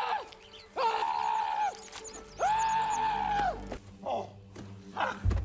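A man screaming in long, drawn-out cries: three loud ones of about a second each in quick succession, then shorter, fainter cries. A low musical drone comes in underneath about two seconds in.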